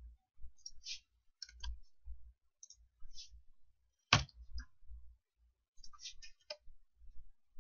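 Computer keyboard keystrokes and mouse clicks while a spreadsheet formula is typed: scattered light clicks in small clusters, with one sharper click about four seconds in the loudest.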